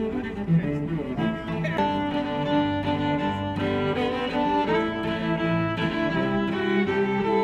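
Background music: bowed strings playing a melody over lower held notes.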